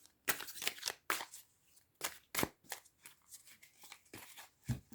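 A tarot deck being shuffled by hand: a run of short, irregular rustling card slaps.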